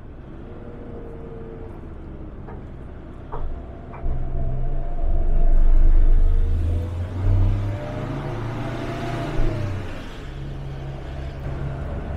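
Converted camper truck driving, heard from inside the cab: a steady engine drone that grows louder about four seconds in, peaks around six seconds and then settles, with a fainter tone rising and falling in pitch along with it.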